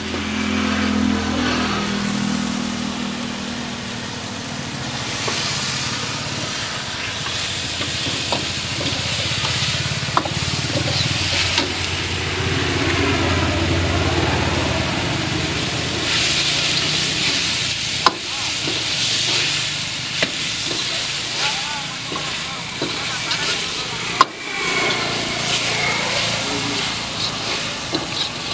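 Chicken pieces sizzling in a hot wok while a metal ladle stirs and scrapes through them, with a few sharp clinks of the ladle against the pan.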